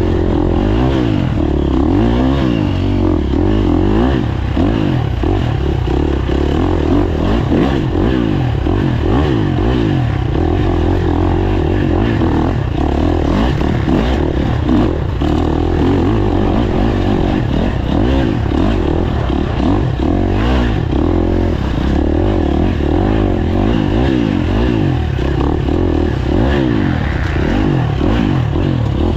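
Off-road dirt bike engine heard on board, revving up and falling back over and over as the throttle is worked, with occasional knocks mixed in.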